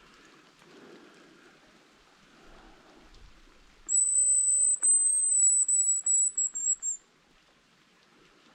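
Hazel grouse decoy whistle (манок) blown to imitate the male's song: a long, very high, thin whistle that breaks into a quick run of short notes near the end, lasting about three seconds.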